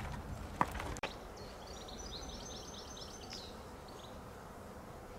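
A small songbird singing one phrase of rapid high notes, about two seconds long, ending in a flourish. Before it, during the first second, there are footsteps, low rumble and a sharp click, and then the sound cuts off suddenly.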